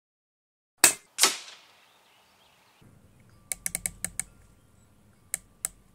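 A .177 Daystate Red Wolf HP PCP air rifle fires a sighting shot: a sharp report, then about a third of a second later the pellet's impact at the target, which trails off. A few seconds later comes a quick run of about seven small clicks and then two more, the scope turret being clicked for elevation.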